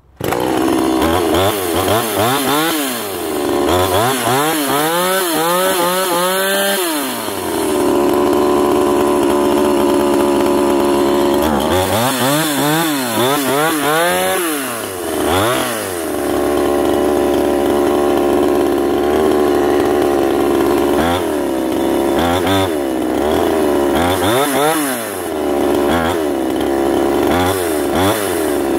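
Castor CX35N two-stroke chainsaw starting at once on the restart pull, then revved up and down in repeated blips with stretches held steady at high revs. The owner finds it slightly hesitant on the throttle after years of standing unused.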